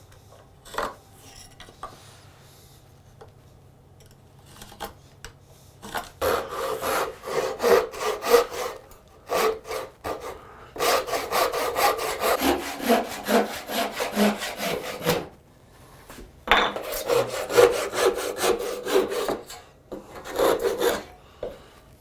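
Hand saw cutting through wood in quick, regular back-and-forth strokes, in three runs with short pauses between them, after a few seconds of faint handling sounds.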